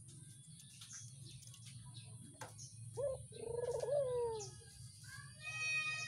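Barbary dove cooing: a short note about three seconds in, then a longer, rolling coo that drops in pitch at the end. Near the end a higher, steady-pitched call from another animal starts.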